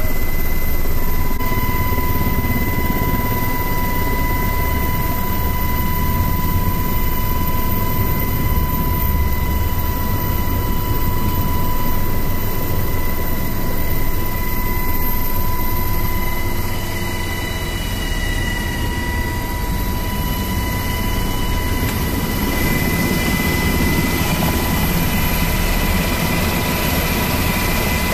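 UH-60 Black Hawk helicopter running close up: heavy rotor and engine noise with a steady high-pitched whine over it. The noise shifts slightly about three quarters of the way through.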